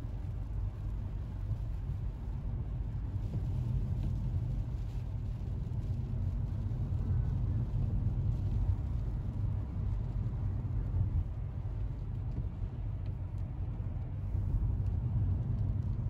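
Steady low rumble of road and engine noise heard inside a moving car's cabin.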